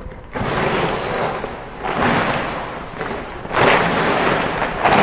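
Hand-held sculpture of interlocking aluminium triangles being shaken, its loose metal facets rattling and clattering. The rattle starts about half a second in and swells in several surges as it is shaken harder.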